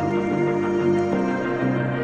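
Background music: soft ambient, new-age style, with sustained chords that change about a second in.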